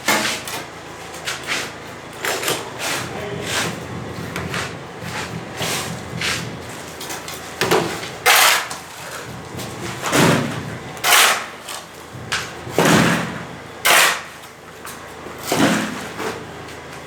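A series of sudden, loud clattering knocks at irregular intervals, the heaviest coming every one to two seconds in the second half.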